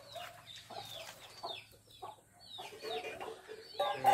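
Chickens clucking and calling, with many short, high calls that fall in pitch. A louder, drawn-out call starts near the end.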